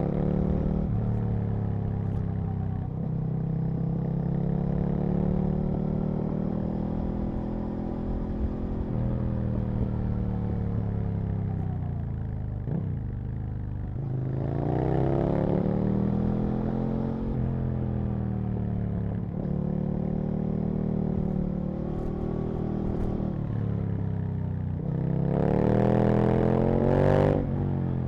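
Aprilia RSV Mille's 998 cc V-twin engine under way, revving up and dropping back several times as the bike accelerates and shifts. The highest and loudest rev climb comes near the end and falls off sharply.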